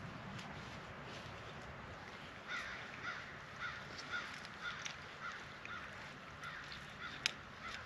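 A bird calling over and over in a steady series, about two short calls a second, starting a few seconds in. A single sharp click near the end.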